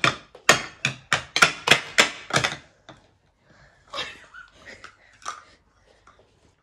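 A knife blade tapping an eggshell to crack it: quick sharp taps, about three a second, stopping about two and a half seconds in, then faint cracks and crackles as the shell is pried apart by hand.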